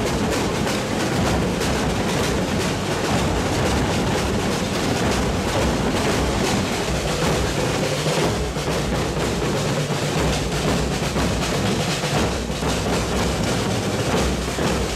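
A large group of drums beaten together by a marching drum corps, a dense, continuous drumming that holds steady throughout.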